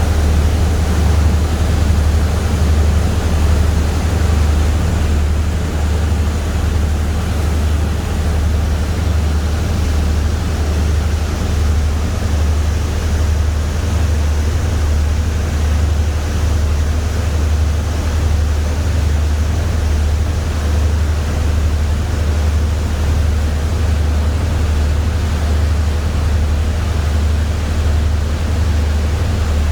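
Boat under way, heard on board: the engine's steady low drone with a constant rush of water beneath it.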